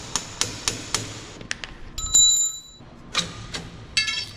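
Sharp metal-on-metal taps, about three a second, as the worn connecting rod is worked out of a potato harvester's primary chain. About two seconds in, a single clear metallic ring, and near the end a quick rattle of chain links.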